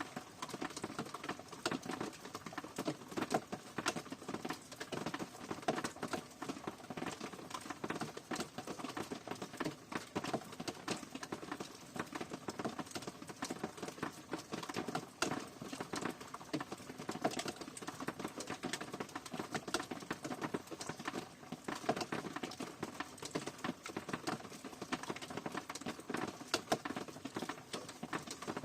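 Rain falling steadily, a dense, irregular patter of drops striking a surface.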